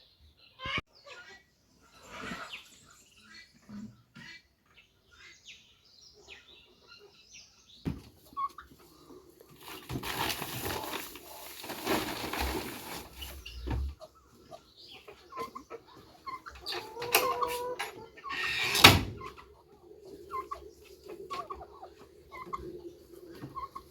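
Chickens clucking and chirping amid scattered knocks and rustling, with one loud sharp knock about three-quarters of the way through.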